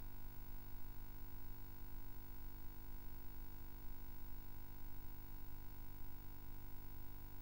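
Steady electrical line hum: a low drone with several fixed tones above it and a faint crackling rumble underneath, unchanging throughout.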